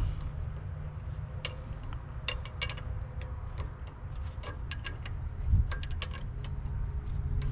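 Scattered, irregular light clicks and ticks of small metal hardware being handled by hand: a nut and ground-wire terminal on the tractor's air intake. A low steady rumble runs underneath.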